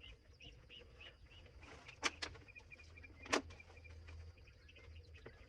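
Faint, quiet sounds: a few short sharp knocks around the middle, and a run of faint high bird chirps.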